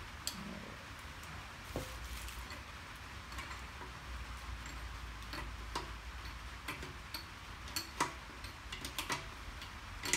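Irregular metal clicks and taps of a wrench loosening the bolts on the cylinder head of an oil-less air compressor, over a faint steady low hum.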